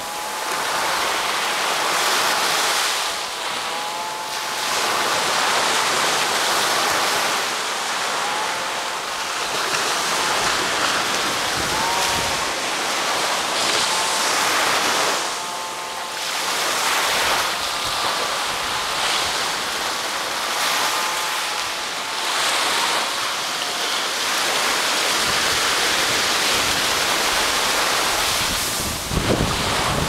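Small ocean waves breaking and washing up the sand at the water's edge, the surf swelling and easing every few seconds. Wind buffets the microphone near the end.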